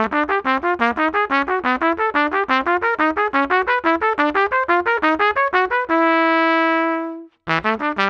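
LOTUS Universal Max trumpet with a bronze tuning slide playing a fast run of short, detached notes, then one held note about six seconds in that fades away. After a brief silence the same kind of quick passage starts again, now with heavyweight valve top caps fitted in place of the lightweight ones.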